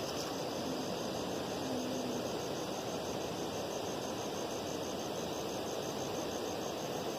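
Crickets chirping in an evenly pulsing high trill over a steady rushing hiss of night-time outdoor noise.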